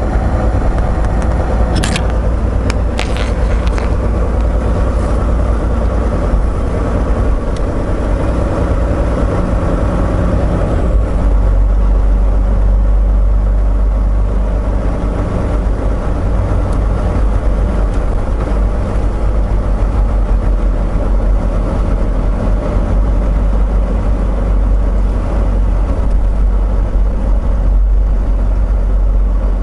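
Volvo VNL860 semi truck's diesel engine running with a steady low rumble that grows stronger about eleven seconds in, with a few sharp clicks two to three seconds in.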